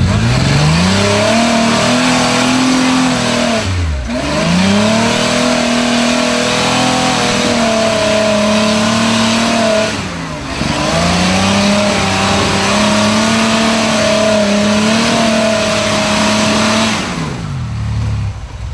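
Rock buggy's engine revving hard under load as it climbs a rock ledge: the revs jump up from idle, are held high with two brief lifts off the throttle, then fall back to idle near the end.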